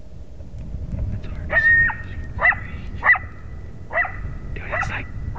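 Coyote yips and barks: five sharp calls about a second apart, each sweeping quickly up in pitch, over a faint steady high note.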